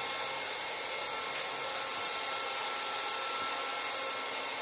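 Tuxing 4500 PSI PCP air compressor running just after being switched on: a steady whirring hum with faint high whining tones, with the bleeder valve still open.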